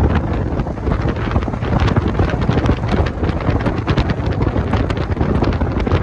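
Wind rushing and buffeting on the phone microphone of a Mazda Miata driving with its top down on a wet road, a loud, unbroken rush with many small crackles through it, over the low rumble of the moving car.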